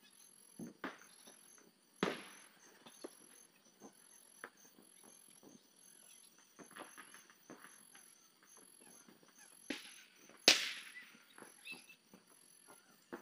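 Crickets chirping in a faint, steady, high pulsed trill. Scattered light clicks, and two sharp cracks, one about two seconds in and a louder one about ten seconds in.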